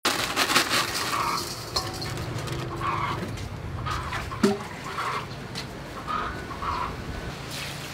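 Plastic bag crinkling as dry glass noodles are tipped into a steel bowl, then a plastic scoop knocking once against the clay water jar about halfway through. Chickens cluck briefly every second or two in the background.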